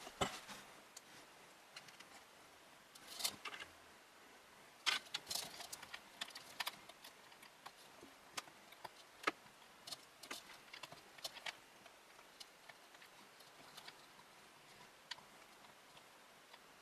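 Scattered light clicks and taps of small plastic and metal computer parts being handled and fitted, a few at a time, with pauses between.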